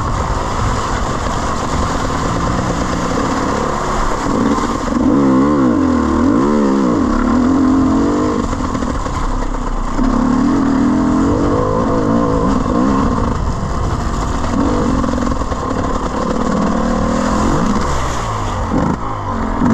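Enduro dirt bike engine revving up and easing off again and again, its pitch rising and falling with the throttle. Near the end the bike splashes through a deep muddy puddle.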